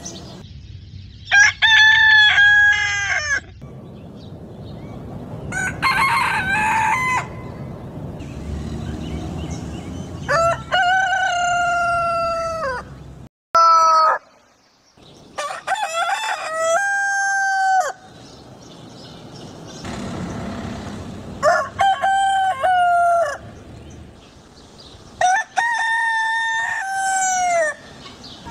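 Roosters crowing, about seven cock-a-doodle-doo calls one after another, each a second to three seconds long, with low background noise between them.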